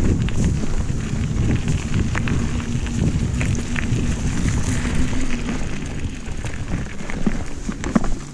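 Wind buffeting the microphone with road rumble while riding an electric bike, with scattered small clicks. A faint steady hum runs underneath and drops to a lower pitch about halfway through.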